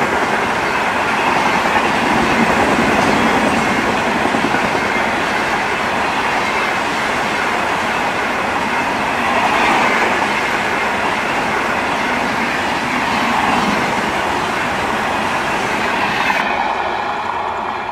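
Brahmaputra Mail's LHB passenger coaches passing at speed close by: a loud, steady rush of wheel, rail and air noise. About a second before the end the higher hiss drops away suddenly as the luggage-brake and generator car goes past.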